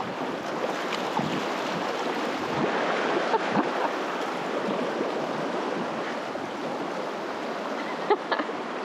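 Rushing water of a river rapid, a steady hiss of moving water, with a few short sharp sounds near the end.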